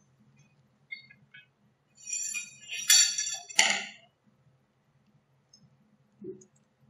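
A brief clatter of small hard objects clinking and rattling, as lab supplies and tools are handled on a bench. A few light clicks come first and a soft knock near the end.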